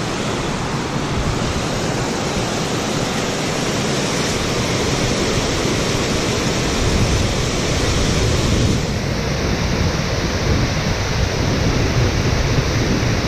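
Water pouring over a dam spillway and churning in the pool below: a steady, loud rush of falling water, fuller in the low end from about four seconds in.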